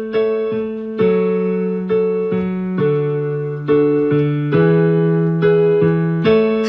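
Music: a slow run of chords struck on a keyboard, a new chord every half second to a second, each ringing and fading before the next.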